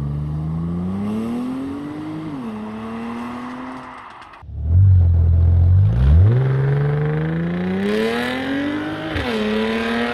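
Audi S5 3.0 TFSI supercharged V6 accelerating hard away on the stock exhaust, rising in pitch, dropping at a gear change about two seconds in, then pulling on and fading. About four and a half seconds in the same engine comes in louder on an exhaust cut down to only the catalytic converter and resonator, rising through a gear with a shift about nine seconds in.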